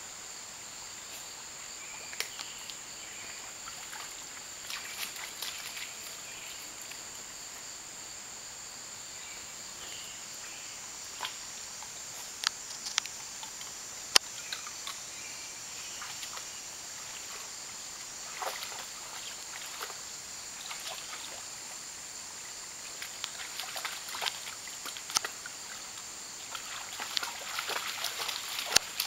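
A steady high-pitched drone of insects, with scattered splashes and clicks of a dog moving about in shallow creek water. The splashing grows busier near the end as the dog wades through.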